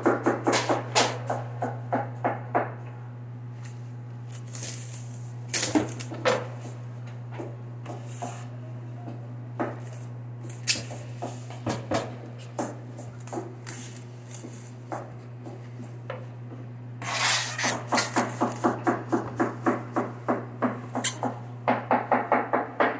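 Plastic cling film being pulled off its roll and stretched over a fruit platter, crackling in quick runs of about four snaps a second, densest near the end. A steady low hum runs underneath.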